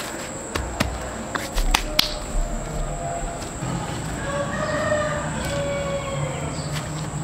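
A rooster crowing once, starting about four and a half seconds in. It is preceded by a few sharp clicks or knocks in the first two seconds.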